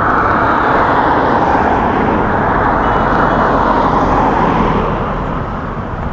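A car passing close by on the road: tyre and engine noise that swells and then fades away about five seconds in.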